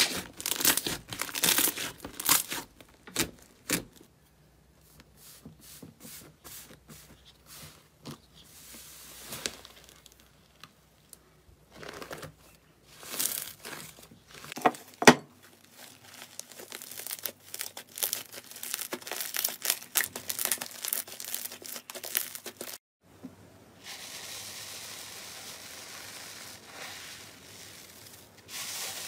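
Slime being stretched, squeezed and pressed by hand, giving irregular crackling, popping and tearing sounds. About two thirds of the way in, the sound turns into a steadier fine crackle as a bubbly, foam-textured slime is pressed.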